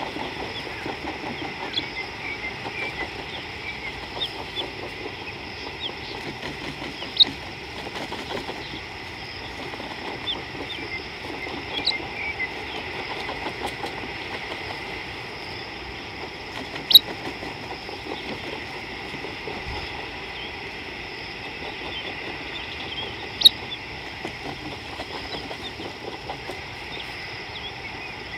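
Outdoor bush ambience: a steady hiss with scattered faint short bird chirps, broken by four sharp clicks spread through it.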